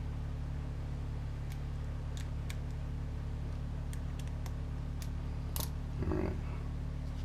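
Scattered light clicks and taps of a hand screwdriver and small plastic kit parts being handled, with one louder click about five and a half seconds in, over a steady low hum.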